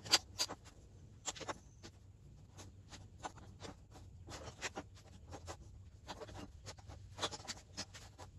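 Small thin wooden diamond pieces being picked up, slid and set down on a wooden workbench top: irregular light clicks, taps and short scrapes.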